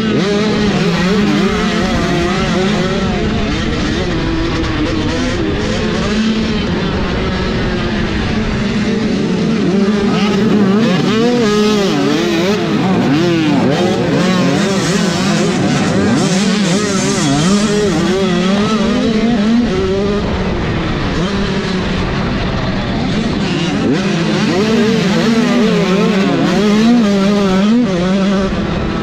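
Onboard sound of a motocross bike in the 85cc class being ridden hard in a race. The engine revs up and down constantly as the throttle opens and closes through the corners and straights.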